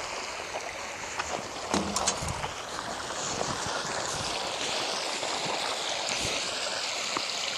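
Fresh water pouring over a small concrete inlet into a pond: a steady rushing that grows a little louder about three seconds in. A couple of soft knocks about two seconds in.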